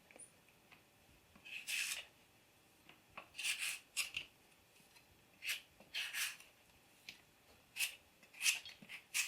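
A knife shaving thin shreds off a peeled green mango: short, quiet scraping strokes at irregular intervals, about a second apart.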